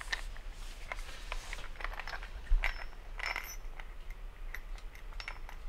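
Small metal light parts and mounting hardware clinking and clicking as they are handled, several clinks with a brief metallic ring, the sharpest about halfway through.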